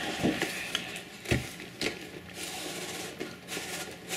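Cardboard box and packaging being handled: rustling and scraping with a few short knocks, the sharpest about a second in.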